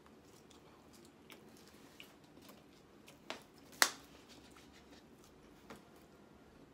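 A person quietly chewing a mouthful of food, with a few scattered small clicks; the sharpest click comes a little under four seconds in.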